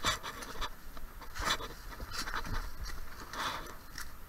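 Footsteps crunching through dry fallen leaves and twigs: irregular crunches, about one a second.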